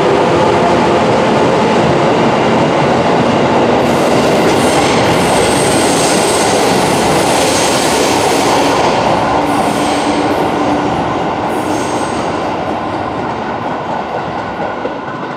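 JR Kyushu 415 series 1500-subseries electric train running out of the platform: loud running noise of wheels on rail, with wheel squeal as it takes the curve. The sound fades from about three-quarters of the way in as the train draws away.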